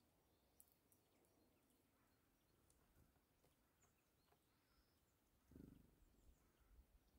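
Near silence, with faint scattered clicks from a red squirrel nibbling seeds on a feeder tray. A soft low thump comes about five and a half seconds in.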